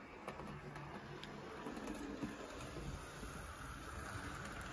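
Hornby B17 OO-gauge model locomotive running on the layout track: a faint low motor hum with scattered soft clicks from the wheels, growing slightly louder about two seconds in as it approaches.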